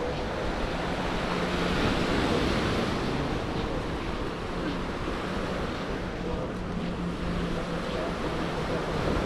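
Sea surf washing against a rock breakwater, a steady rush of waves, with wind on the microphone and a faint steady hum underneath.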